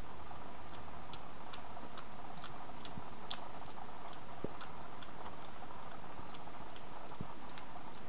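Newborn puppies suckling at their mother: soft rhythmic clicking, about two or three clicks a second and uneven in strength, over a steady background hiss.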